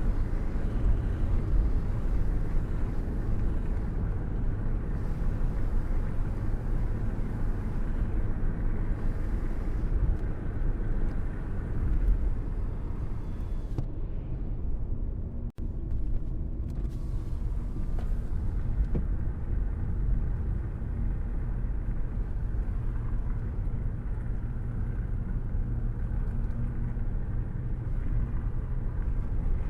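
Steady low rumble of rain and thunder, heavy in the bass with little high hiss, cutting out for an instant about halfway through.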